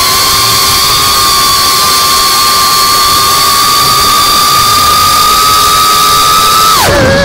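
FPV quadcopter's brushless motors and propellers whining at a steady pitch over a loud rush of air. Near the end the throttle is cut: the whine drops sharply and then climbs back up as the quad tips into a dive.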